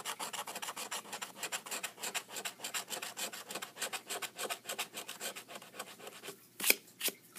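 A coin scraping the latex coating off a paper scratch-off lottery ticket in quick back-and-forth strokes, several a second. The scraping stops about six seconds in and is followed by two sharp clicks.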